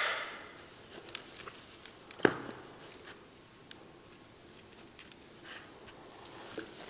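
Fishing line being worked in the fingers as a knot joining fly-line backing to a running line is pulled tight: a short rustle at the start, light scattered ticks of line and hands, and one sharp snap a little over two seconds in.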